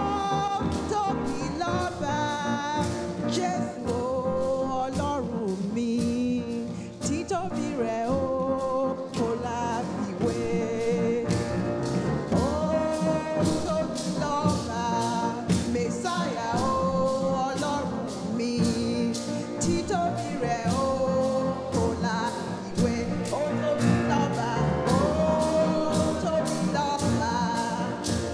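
Yoruba praise song sung by a woman into a microphone, over a steady beat of about two strokes a second.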